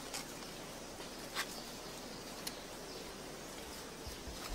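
Quiet forest-floor ambience: a faint steady hiss with a few soft, brief ticks, the clearest about a second and a half in.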